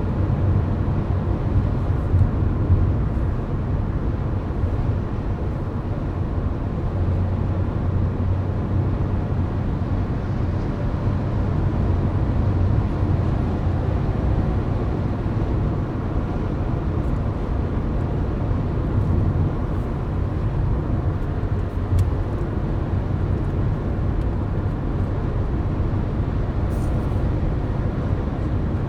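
Car driving at highway speed, heard from inside the cabin: a steady low rumble of tyre and road noise with the engine underneath.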